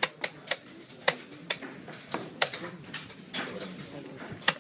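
Blitz chess: pieces set down sharply on the board and chess clock buttons pressed, making about seven quick, irregular clicks.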